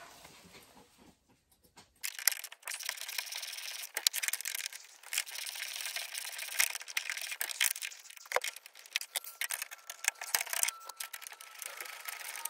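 Ratchet wrench clicking in quick spells as a bolt in the car's door frame is worked loose, starting about two seconds in.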